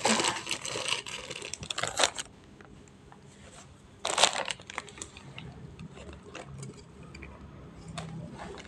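Rustling, crinkling handling noises as balloon and flour are worked by hand, loudest in the first two seconds, with another short sharp rustle about four seconds in and fainter fiddling after.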